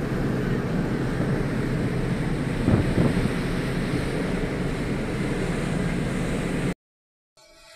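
Wind rushing over the microphone with the wash of the sea and a low rumble from the moving ferry, heard on its open deck, with a brief louder gust about three seconds in. The sound cuts off abruptly near the end.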